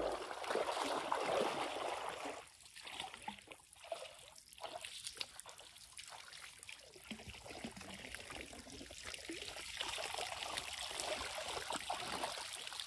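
Shallow lake water splashing and trickling around wading legs, then water draining and pouring out of a mesh carp weigh sling as it is lifted out of the lake near the end.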